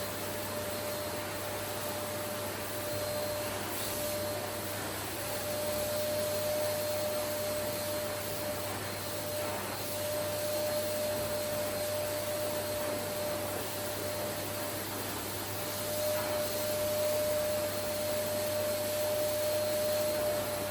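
Vacuum cleaner running steadily: an even rushing hiss with a steady whine from the motor, growing a little louder in the last few seconds.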